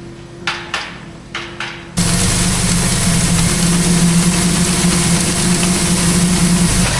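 An engine running steadily at a constant speed, cutting in abruptly about two seconds in. Before it there is a faint steady hum with a few light knocks.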